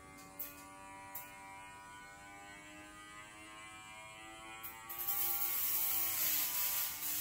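A steady electric buzz with a slowly drifting pitch, like a small motor running. About five seconds in, a loud hiss joins it.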